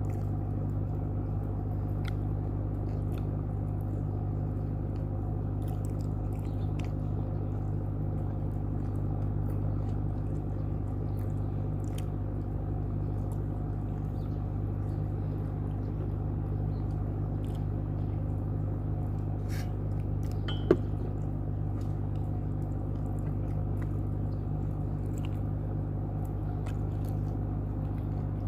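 Close-up chewing and biting while eating, heard as small scattered clicks with one sharper click about two-thirds of the way through, over a steady low hum.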